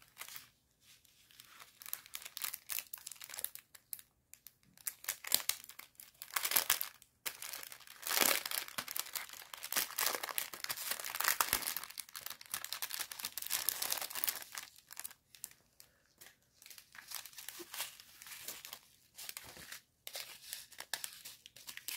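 Clear plastic packaging of diamond-painting drill bags crinkling as it is handled and pulled open, in irregular spurts with short pauses, busiest through the middle.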